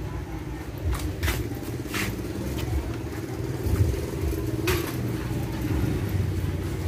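A motorbike engine running steadily with a low rumble, with a few short sharp clicks and knocks over it, the loudest a little under five seconds in.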